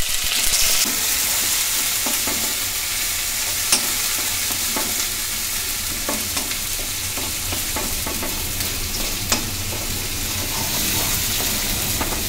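Green chillies, spices and ginger-garlic paste with fresh turmeric sizzling in hot oil in a wok, stirred with a metal spoon. The spoon scrapes and clicks against the pan now and then over a steady sizzle.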